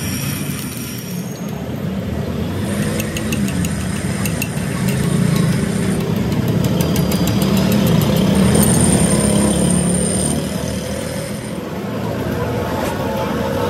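A steady engine-like rumble, with a run of quick light ticks a few seconds in and a short thin high whistle near the middle.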